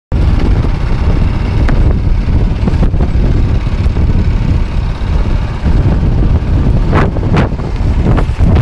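Strong wind buffeting a phone's microphone on an open boat: a loud, ragged rumble that covers everything, with two short bright hisses about seven seconds in.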